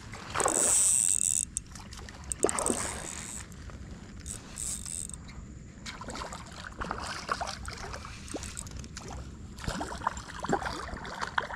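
Lake water sloshing and splashing around anglers wading waist-deep, with a louder splashing burst near the start and scattered small knocks and rustles.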